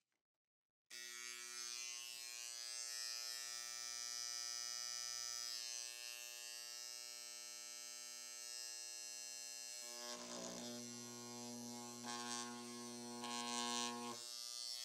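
Handheld electric engraver (7,200 strokes per minute, carbide tip) switched on about a second in and buzzing steadily as its tip is drawn along the slots of a thin 3D-printed PLA stencil on a metal plate. The buzz grows rougher and louder in stretches near the end as the tip scratches the metal.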